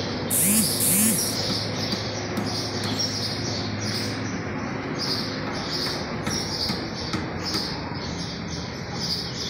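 A bird chirping over and over, about two short high chirps a second, with two louder, sharper calls about half a second and a second in. A low steady hum runs underneath.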